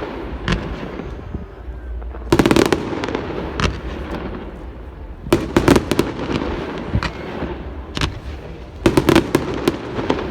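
Fireworks display: volleys of sharp bangs in three clusters about three seconds apart, with single cracks between them over a low rumble.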